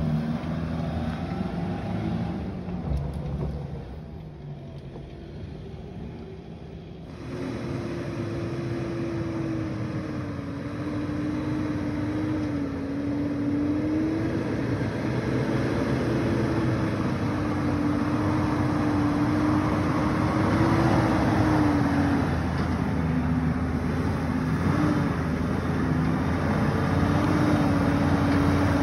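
Toyota Hilux ute's engine working up a rocky dirt track, fading as it climbs away. After a cut about seven seconds in, a Toyota LandCruiser 80 Series engine labours up the rough track, its note rising and falling with the throttle and growing louder as it approaches.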